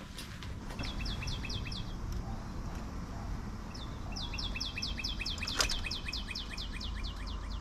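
A small bird singing fast runs of short, descending whistled notes, about six a second: a brief run near the start and a longer one from about halfway on. A single sharp knock lands partway through the longer run.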